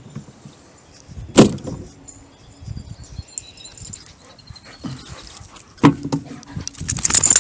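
Handling noise from clearing sticks: a single sharp knock about a second and a half in, then from about six seconds a dense jangling rattle as a plywood garden cart on bicycle wheels is grabbed and moved.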